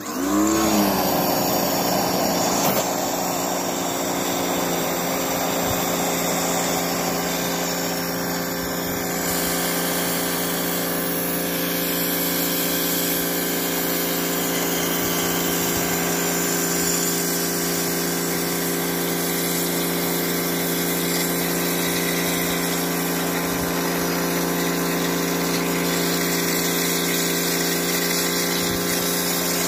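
Pressure washer running steadily, its water jet flushing out a catalytic converter; the motor spins up in pitch in the first second, then holds an even whine over the rush of spray.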